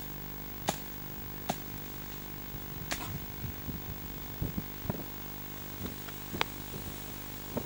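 A steady low machine hum, with sharp clicks over it about once a second at first, then irregular.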